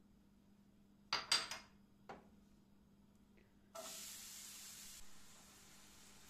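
A couple of sharp knocks about a second in, then a sudden loud sizzle a little before four seconds as chopped onion fries in hot olive oil in a frying pan, easing to a steady lower hiss.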